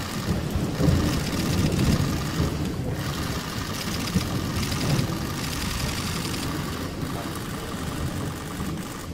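Many press camera shutters clicking rapidly and overlapping, over a low rumble of room noise.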